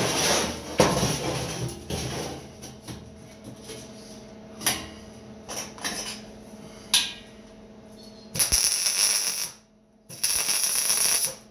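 Two short bursts of arc-welding crackle, about a second each, near the end, likely tack welds on the steel bandsaw-base frame. Before them, a clatter at the start and scattered clicks and knocks of metal being handled.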